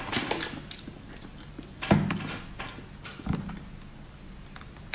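Close-miked mouth sounds of someone eating a soft jelly: wet, squishy chewing with small clicks and smacks, and one sharper, louder smack about two seconds in.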